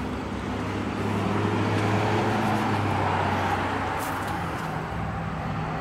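Road traffic going by: a vehicle passes, its sound swelling and then easing off over a few seconds, over a steady low hum.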